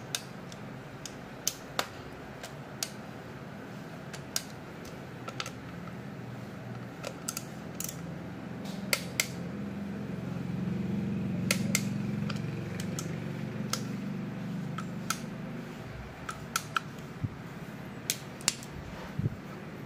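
Scattered sharp metallic clicks of a wrench as the engine cover bolts are double-checked for tightness. A low hum swells in the middle and fades away.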